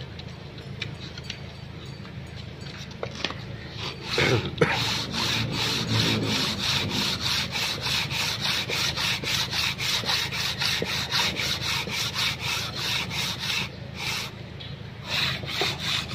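Flat sanding block rubbed back and forth by hand across the deck face of a three-cylinder Multicab cylinder head, resurfacing it: a rhythmic rasping scrape at about three strokes a second. It starts about four seconds in, stops briefly near the end and starts again.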